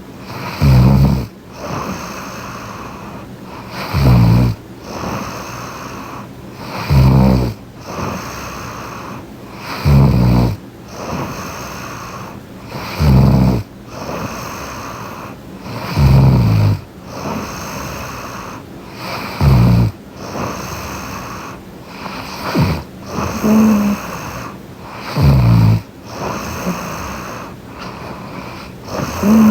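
A sleeping young woman snoring close to the microphone: one loud, low snore about every three seconds, with quieter stretches between.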